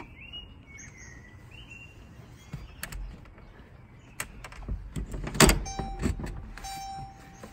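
Mercedes-Benz A160 (W168) front seat being pushed into its floor anchors and rails: scattered clicks and metal clunks, the loudest a sharp clunk about five and a half seconds in. Near the end a steady high electronic tone starts.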